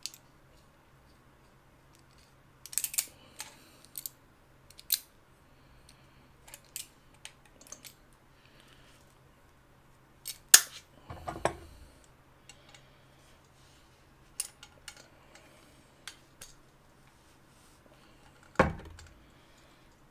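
Small metal pipe fittings and tools clinking and clicking as they are handled and screwed together, in scattered sharp clicks, with two heavier knocks about ten seconds in and near the end.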